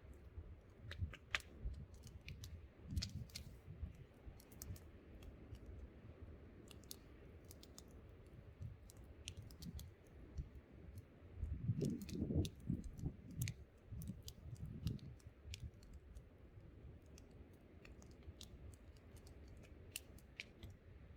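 Wood campfire crackling, with irregular sharp pops and snaps over a low rumble of wind. A stronger gust swells for a couple of seconds a little past halfway.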